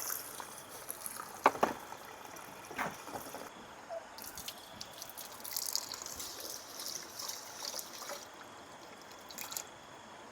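Water trickling and running in short spells, with a few sharp clinks and knocks of kitchenware in between.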